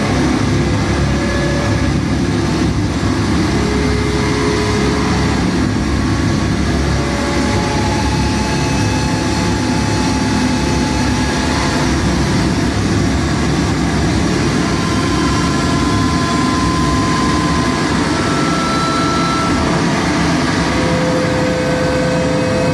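Harsh noise music played live on electronics: a loud, unbroken wall of rumbling noise, heaviest in the low end, with short held tones surfacing at different pitches and fading out.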